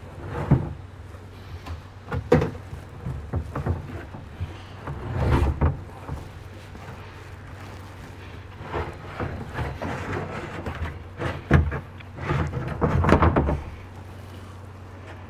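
Plastic kayak hull scraping and knocking against a metal rooftop cargo basket and J-style kayak carrier as it is slid into place: a series of irregular bumps and scrapes, heaviest near the end, over a steady low hum.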